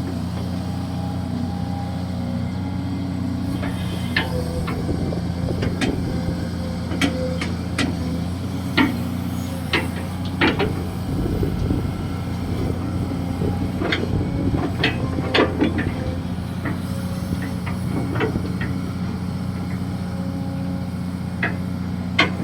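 Kobelco SK200-6 Super hydraulic excavator's diesel engine running steadily under digging work, with scattered sharp clanks and knocks.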